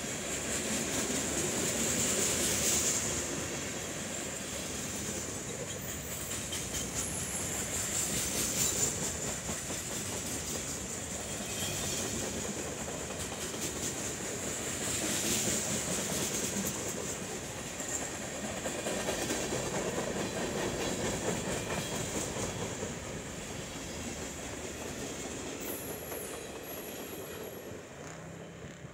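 Freight train cars rolling past close by, their wheels clicking over the rail joints, with a high wheel squeal that swells and fades several times. The sound dies away near the end as the last car goes by.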